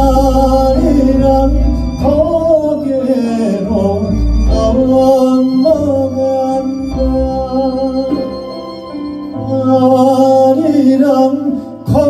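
Male traditional Korean folk singer (sorikkun) singing live into a microphone over a small band with a double bass, holding long notes that bend and waver in pitch.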